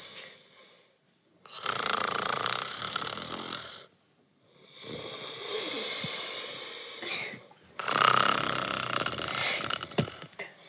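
A man asleep on his back snoring: three long snores, each lasting two to three seconds, with short pauses between breaths.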